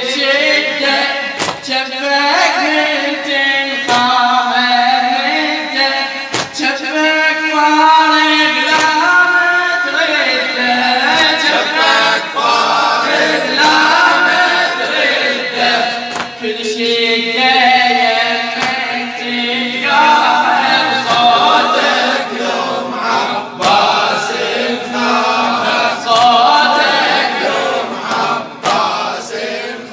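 Layered male voices singing a wordless melody in the style of a Shia latmiya, an a cappella vocal interlude between the verses, with a sharp beat about every two and a half seconds.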